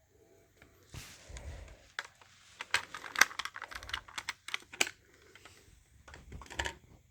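Irregular plastic clicks and rattles from an HD135F smoke alarm being handled while its battery is fitted. The clicks come thickest in the middle, with a short cluster near the end; no alarm sounds.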